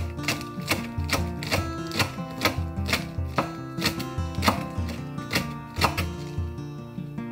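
Knife chopping on a cutting board in a steady rhythm of about two strokes a second, stopping about six seconds in, over background music.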